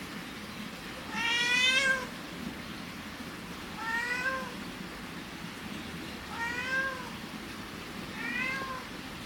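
Cat meowing four times, a call every two to three seconds. The first meow is the longest and loudest.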